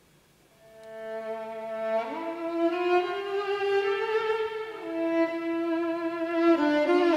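Violin playing slow, held notes. It comes in a little under a second in on a low note and slides up to a higher one about two seconds in.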